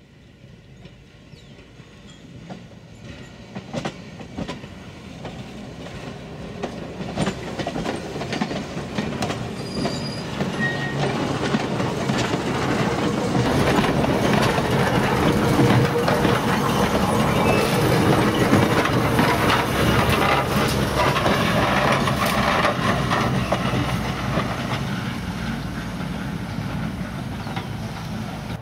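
Sacramento Northern two-car electric interurban train, car 1020 leading 1005, rolling past on the rails, its wheels clicking over the rail joints. The sound grows steadily louder to a peak a little past halfway, then fades.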